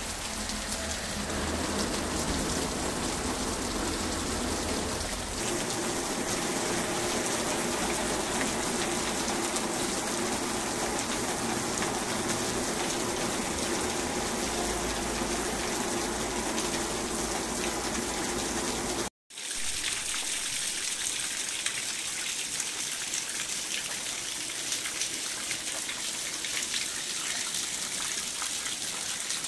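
Heavy rain pouring steadily, with water streaming off a roof edge. About two-thirds of the way through the sound cuts out for a moment, then runs on as runoff splashing into a puddle on the ground.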